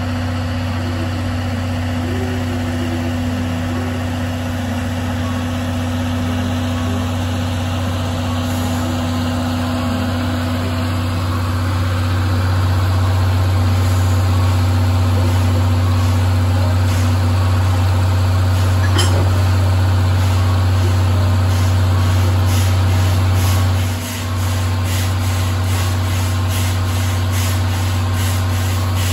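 Steady low engine-like hum from idling train equipment alongside the standing train. In the second half, faint regular ticking comes in at about two a second.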